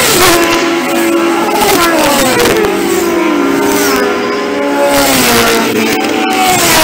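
Motorcycles passing one after another at speed, several engines overlapping. Each engine note drops in pitch as the bike goes by.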